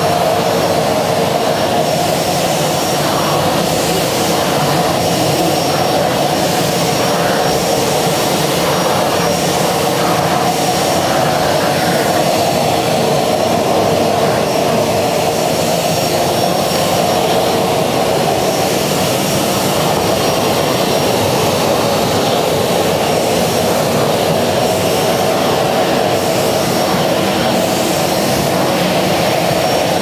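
Kärcher WD 2 wet-and-dry vacuum cleaner with a 1200 W motor running steadily, with a high whine, while its floor nozzle is drawn over a soaked carpet, sucking up the water. A rushing sound swells and fades about once a second during the first dozen seconds.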